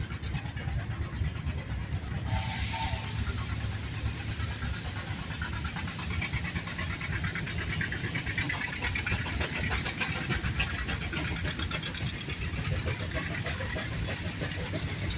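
Steam engines running: a steady low mechanical rumble with rapid, even beats, and a brief burst of hiss about two seconds in.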